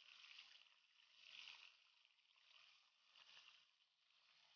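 Oil sizzling faintly as small tawilis fish deep-fry in a pan, a steady hiss that swells and eases a few times.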